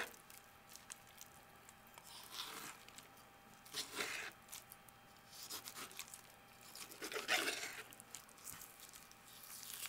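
Knife slicing raw chicken breast meat away from the rib-cage bones: a few faint, wet scraping strokes, the loudest about seven seconds in.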